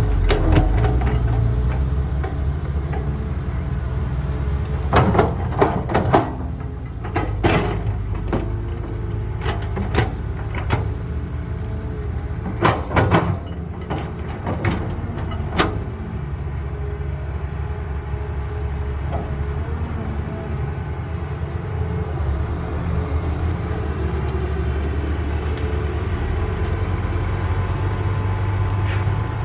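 Caterpillar excavator's diesel engine running steadily under load, with a run of sharp clanks and knocks between about five and sixteen seconds in as the excavator works.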